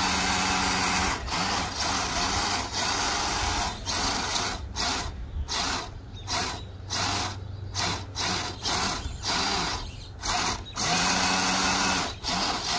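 RC rock crawler's electric motor and drivetrain whining in a series of short throttle bursts, with a longer burst near the end. The truck is high-centered on bricks, its wheels spinning without freeing it.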